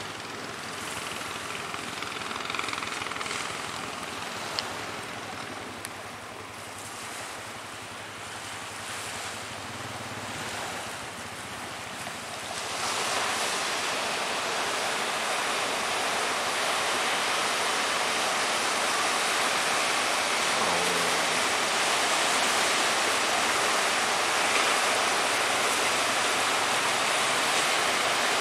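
Sea waves and strong wind making a steady, noisy wash that grows louder about halfway through.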